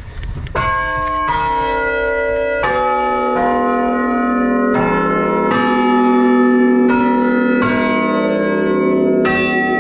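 Tuned chime bells in a bell tower playing a slow melody, loud and close from inside the belfry. About nine notes are struck, roughly one a second, each ringing on under the next.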